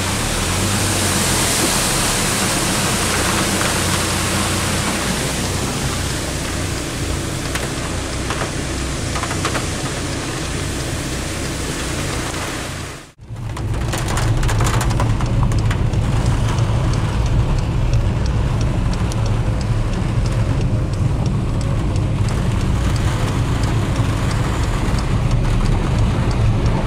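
Steady rushing hiss of floodwater pouring over a road crossing, with rain. After a cut about halfway through, the low rumble of a car driving on a wet road, heard from inside the cabin, with small ticks of rain on the car.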